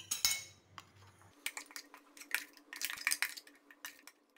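A metal spoon scraping and clinking against the inside of a stainless-steel mixer-grinder jar as thick ground coconut-and-rice batter is scraped out, in irregular clusters of sharp clinks.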